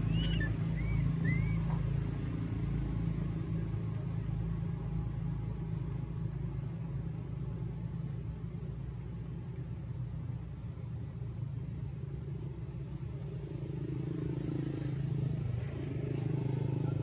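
Steady low rumble of a motor vehicle engine running, with three or four short high rising-and-falling squeaks from a baby macaque in the first two seconds.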